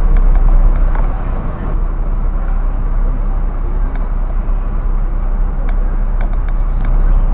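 Mercedes-Benz coach's diesel engine rumbling steadily as the bus creeps forward at low speed, with voices of people around it.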